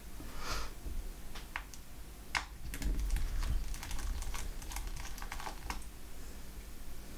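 Quick, light clicks and taps of small hard parts being handled on a laptop during disassembly, preceded by a soft brushing sound. The clicks come in an irregular run like typing and are densest in the middle.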